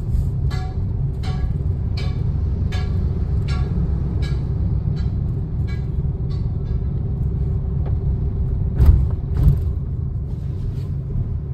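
Inside a Maruti Suzuki Wagon R being driven: steady engine and road rumble, with a regular tick about every 0.7 s for the first six seconds or so. Two thumps about nine seconds in are the loudest sounds.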